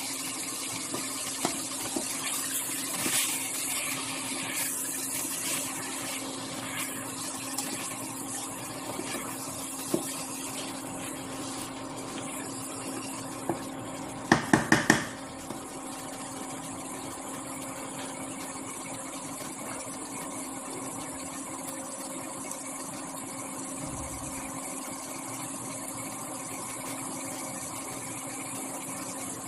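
Spiced tomato and potato masala frying in a pan: a steady hiss and hum, with light knocks from stirring in the first half and a quick run of four sharp knocks about halfway through.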